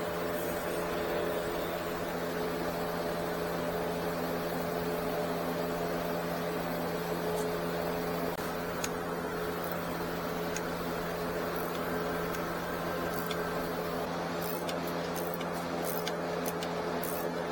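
A steady mechanical hum at a constant pitch, with a few light clicks and taps in the last few seconds.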